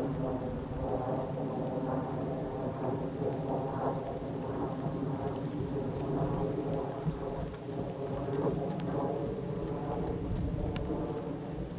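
Ridden horse's hoofbeats on grass in a regular stride rhythm, soft thuds under a steady hum and a rumbling noise that runs throughout.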